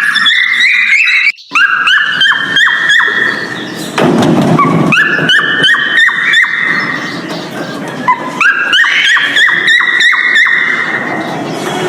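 Male cockatiel whistling its courtship song: rapid runs of short, rising whistled notes, with a brief break about a second and a half in.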